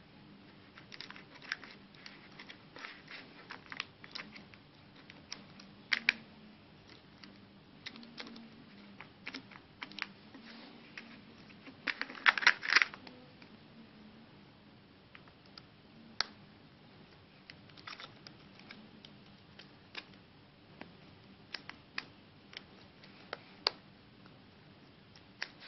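Scattered small plastic clicks and taps as hands handle the parts of a disassembled Samsung Galaxy phone on an anti-static bag, with a dense run of louder clicks about twelve seconds in.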